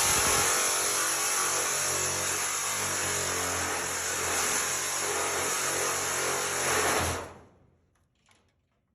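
Battery-powered cutting tool running steadily while cutting through metal screws that hold the furnace coil to the plenum, with a strong high hiss; it is released about seven seconds in and winds down quickly to quiet.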